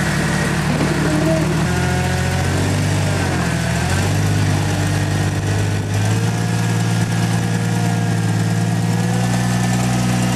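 Rock-crawling Jeep's engine running at low revs close by, its pitch stepping up and sagging a few times as the throttle is eased on and off while crawling.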